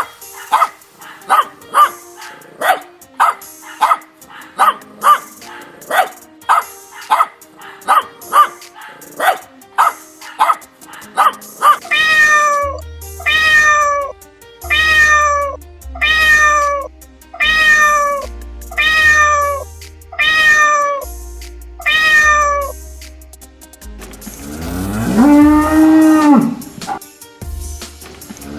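A run of short, quick animal calls. These give way about twelve seconds in to a cat meowing again and again, each meow falling in pitch, over a low musical bass. Near the end comes one long, deep cow moo.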